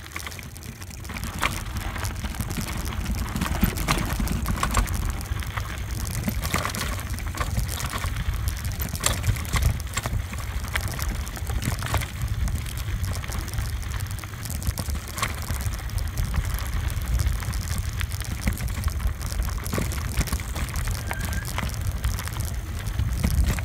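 Mountain bike tyres rolling fast over loose gravel and stones: a continuous crunching crackle full of small clicks, over a steady low rumble.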